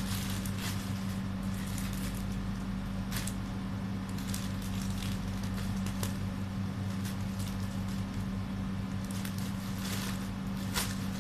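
Plastic courier pouch crinkling and tearing as it is pulled open by hand, with scattered sharper crackles, over a steady low hum.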